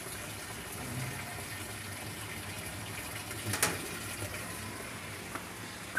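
Water running into an LG top-loading washing machine's tub during its fill, a steady rushing noise, with one brief knock about three and a half seconds in.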